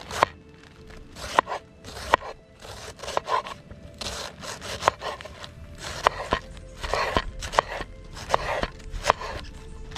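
A kitchen knife slicing through a head of cabbage onto a wooden cutting board: each stroke gives a crisp crunch of leaves and a sharp knock as the blade meets the board. The strokes come at an uneven pace, a little more than one a second.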